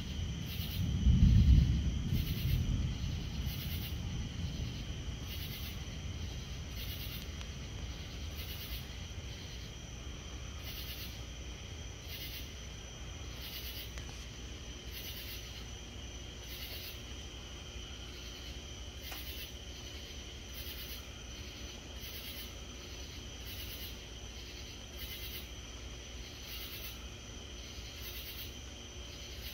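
A roll of thunder swells about a second in and rumbles away over several seconds. Under it and after it, a chorus of night insects keeps up a steady high drone with a chirp about once a second.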